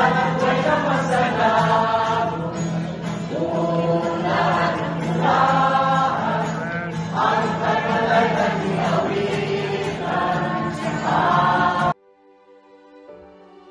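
A mixed group of men and women singing together, accompanied by an acoustic guitar. About twelve seconds in, the singing cuts off abruptly and faint, soft music takes over.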